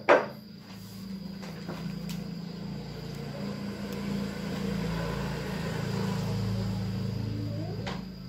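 A motor vehicle's engine running steadily, growing louder toward the middle and fading near the end, as one passing close by. Two sharp knocks come at the very start.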